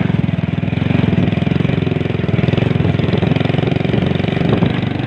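An engine running steadily at an even speed, with a fast, regular pulse.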